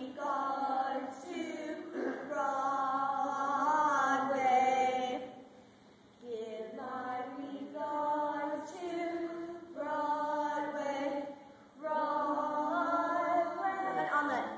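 Unaccompanied singing voices carrying a melody in long held notes that glide between pitches, broken by two short pauses between phrases.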